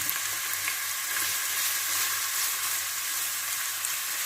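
Chopped onions sizzling in hot cooking oil in a pot, a steady hiss with small scattered crackles.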